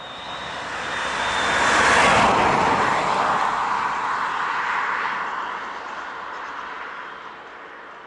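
A passing vehicle: a swell of rushing noise that builds to a peak about two seconds in, then slowly fades away.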